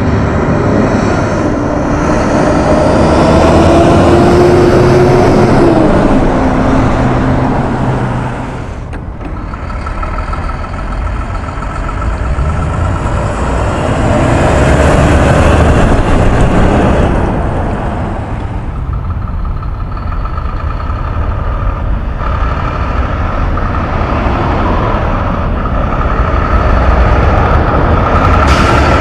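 Heavy diesel truck engines running loudly. The pitch rises and falls in the first few seconds, and the sound changes abruptly about nine and again about eighteen seconds in.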